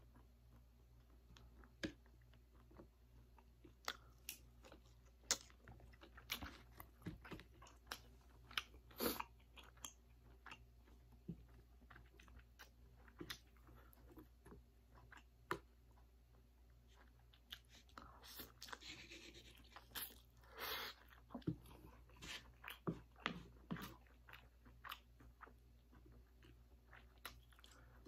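A person chewing a mouthful of spicy stir-fried noodles up close, with many short wet smacks and clicks, and a longer slurp of noodles about two-thirds of the way through.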